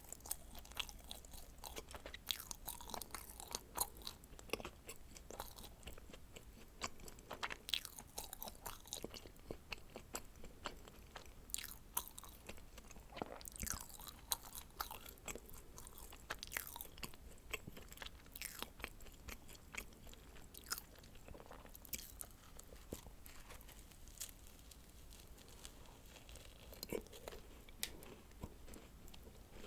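Close-miked chewing and biting of dacquoise, a stream of many small, irregular crackles and clicks without pause.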